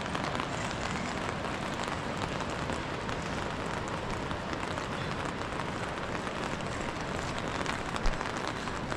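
Steady hiss of rain and wind, with fine patter throughout. A single low thump about eight seconds in.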